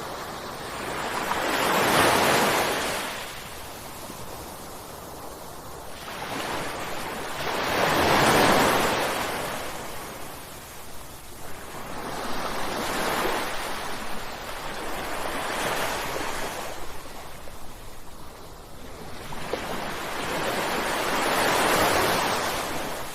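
Ocean waves crashing, one after another, each surge of surf swelling and then fading over a few seconds. The three biggest break about two seconds in, in the middle, and near the end, with smaller ones between.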